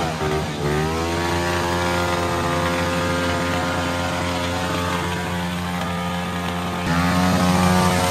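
A small mini bike engine revved hard and held at high revs. The revs dip briefly about half a second in, climb straight back and hold, and the engine gets louder again near the end.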